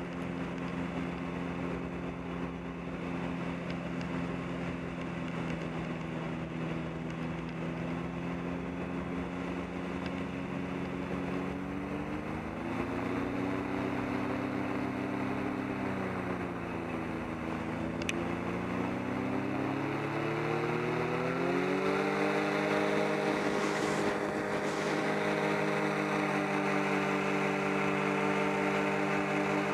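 Powered parachute's engine and propeller running steadily, then throttled up: the pitch rises, eases back briefly, then rises again and holds higher as power is added for a climb.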